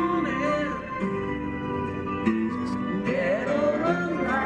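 Background music: a guitar-led song with a singing voice coming in over the chords during the second half.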